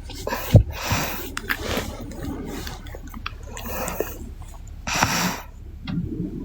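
A sleeping woman snoring: a string of rasping, noisy breaths and snorts about a second apart, with a lower, rumbling snore near the end.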